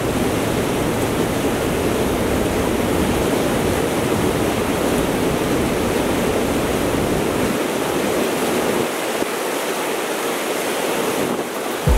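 River water rushing steadily over a rocky drop into whitewater. Wind rumbles on the microphone at first and eases off about two-thirds of the way through.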